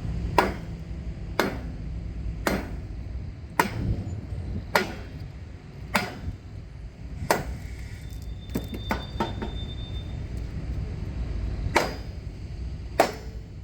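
Heavy hammer blows, struck in a steady rhythm about once a second, with a short pause and a few lighter knocks partway through before two more hard blows near the end.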